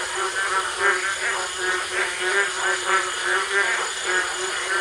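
A chorus of frogs calling continuously, with pulsed calls repeating two or three times a second.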